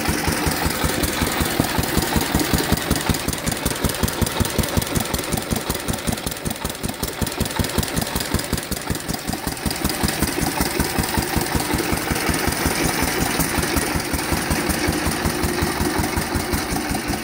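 Bernard P2 single-cylinder engine of a Grillet-type vineyard tractor running steadily, with a rapid, even firing beat that eases slightly in the middle.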